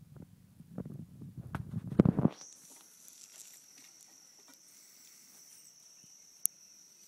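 Low rumbling noise with scattered knocks, loudest about two seconds in, which stops abruptly. It gives way to an insect's steady high-pitched trill that runs on unbroken, with one sharp click near the end.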